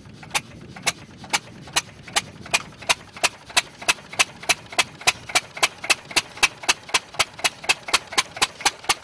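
Single-cylinder stationary engine with a large flywheel running up to speed. Its sharp, even firing beats quicken from about two a second to about four a second.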